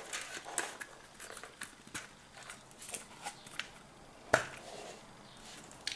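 Light clicks and taps as the plug and end cap of a homemade PVC BB gun are handled and fitted back on, with one sharper click about four seconds in.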